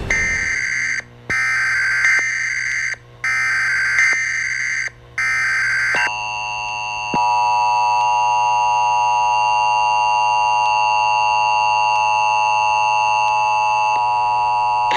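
Emergency Alert System tones: three harsh bursts of the SAME data header, each about a second long with short gaps, then the steady two-tone EAS attention signal, which steps up in loudness about a second after it begins and holds for about nine seconds.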